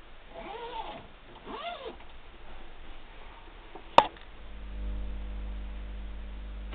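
Two short calls about a second apart, each rising then falling in pitch, then a sharp knock and a steady low hum as the camera is handled against the enclosure's mesh screen.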